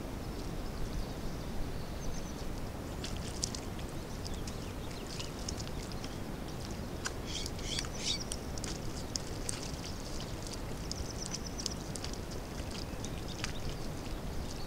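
Small birds chirping and trilling in quick high notes, thickest about halfway through, over a steady low rumble of outdoor background noise.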